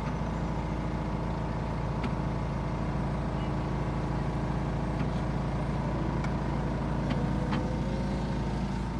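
Miniature train running along its track, heard from a passenger car: the locomotive #2502's engine gives a steady drone with several held tones, and a few light clicks come through now and then.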